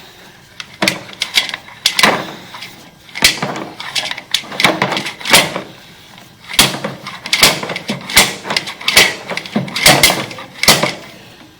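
Repeated knocking on a door, in short irregular groups of sharp raps roughly every second, each ringing briefly.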